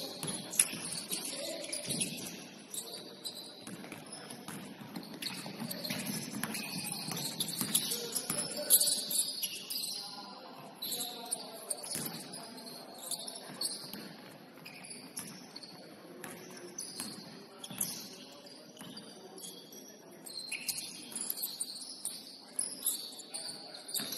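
Basketball game on a hardwood court: sneakers squeaking in short high chirps as players cut and stop, the ball bouncing in scattered knocks, and players calling out now and then.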